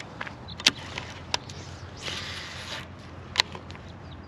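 A baitcasting rod and reel being handled: three sharp clicks and a short rush of noise about two seconds in, over a faint low steady hum.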